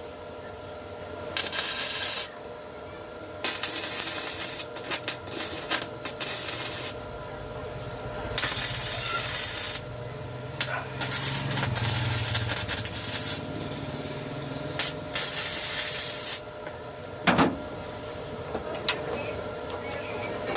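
Repeated bursts of hissing air, each one to three seconds long, starting and stopping sharply, over a steady hum. A single knock comes near the end.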